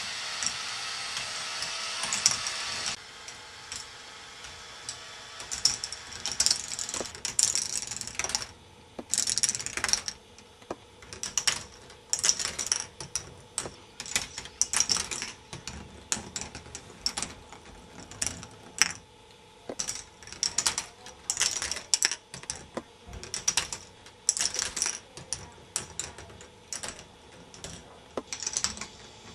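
K'nex ball machine running: plastic balls clicking and clattering irregularly along plastic tracks and lifts. A steady mechanical whir for the first three seconds cuts off suddenly.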